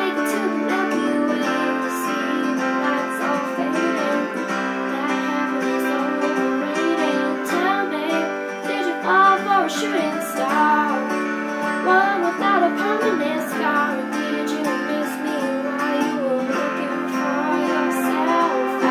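A young woman singing along to a karaoke backing track with plucked guitar.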